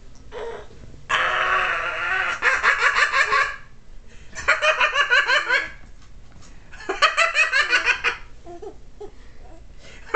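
Baby girl laughing in bursts of quick, high-pitched giggles, each about a second long with short pauses between. The first burst, about a second in, opens with a longer drawn-out squeal, and another burst starts at the very end.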